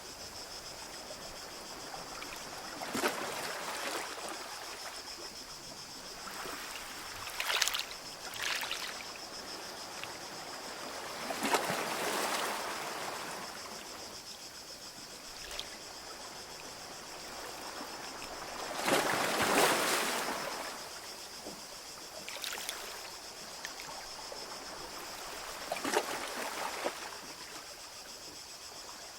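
Small sea waves lapping and washing onto a beach: a soft wash every few seconds, the biggest about two-thirds of the way through.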